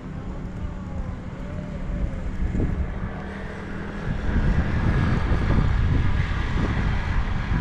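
A steady low engine hum, joined from about halfway in by louder, uneven wind rumble buffeting the microphone.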